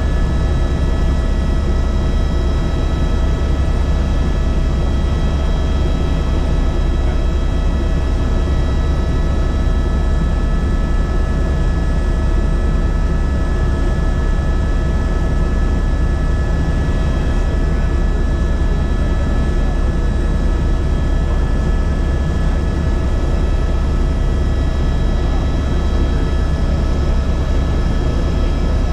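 Helicopter in steady flight: a constant drone of rotor and engine with several steady high whining tones from the turbine, unchanging throughout.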